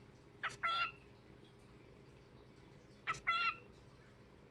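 Pet cockatiel calling twice, about two and a half seconds apart, each call a short sharp note followed by a longer high-pitched note.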